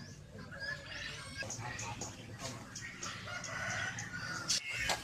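A rooster crowing, with other fowl clucking and calling around it.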